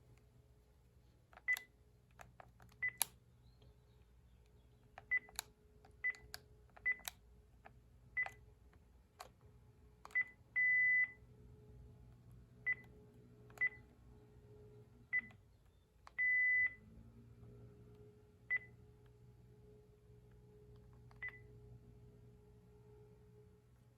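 Panasonic KX-TG5432M cordless handset's key beeps as its buttons are pressed: about a dozen short single-pitch beeps, each with a sharp button click, at an uneven pace. Two longer held beeps come near the middle and about two-thirds of the way through.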